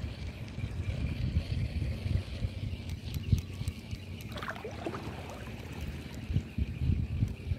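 Wind buffeting the microphone over gently lapping sea water, with a brief wavering chirp about halfway through.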